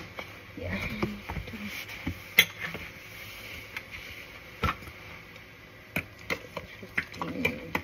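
Metal spoon stirring thick pancake batter in a bowl, knocking against the bowl's side in scattered sharp clinks, a few single ones and then a quicker run of them from about six seconds in.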